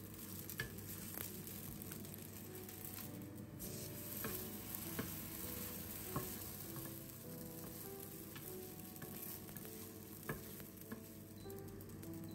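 Msemen flatbread frying in a hot nonstick pan: a faint, steady sizzle, with a few light clicks and taps as it is turned with a wooden spatula.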